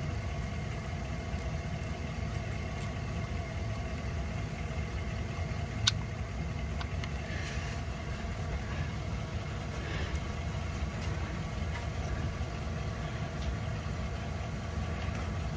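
A steady machine hum, with a low rumble and a few fixed tones, runs throughout, and one sharp click comes about six seconds in.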